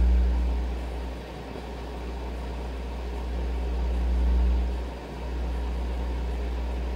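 Low hum from an Audio Research SP9 MkII tube preamp playing through the speakers, its loudness changing as the gain knob is turned: it drops about a second in, swells again near the four-second mark, dips briefly, then holds steady.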